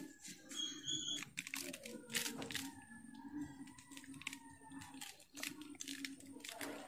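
Irregular crackling and crunching clicks from hands working coarse salt and red chilli powder on a banana leaf and handling a sliced raw green mango, over a steady low hum.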